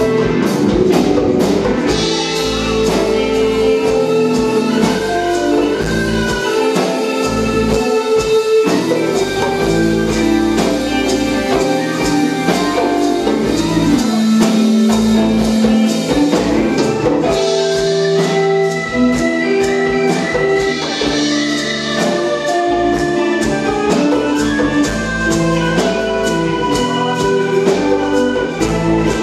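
Live R&B band playing: electric guitars, electric bass and a drum kit, with a melody of held notes over a steady drum beat.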